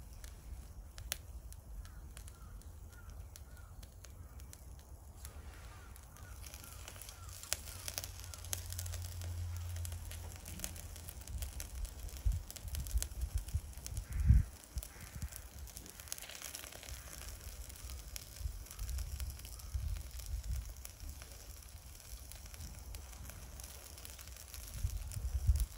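Miso-marinated akauo fillet sizzling on a wire grill net over charcoal in a shichirin, with many small crackles and pops. A low thump about halfway through.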